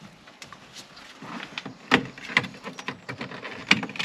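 Irregular clicks and knocks of a plastic car door trim panel being worked on to remove it, with two sharp knocks, about two seconds in and near the end.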